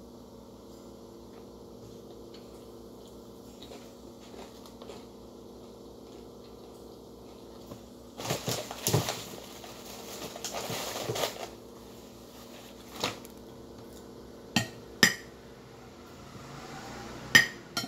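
A plastic bag rustling for about three seconds around the middle, then a metal spoon clinking sharply on a plate four times, the last clink the loudest.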